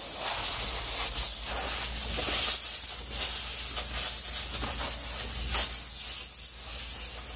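Compressed air hissing from an air compressor's long-nozzle blow gun, swelling and easing as it is worked over a car's interior door panel to blast grime and cleaner out of the seams.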